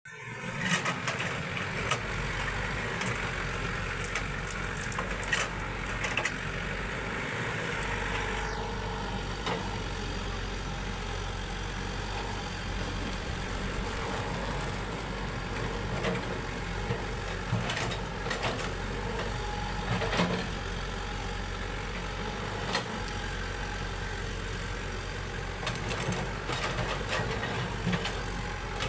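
Excavator's diesel engine running steadily, with scattered short metal clanks and knocks over it.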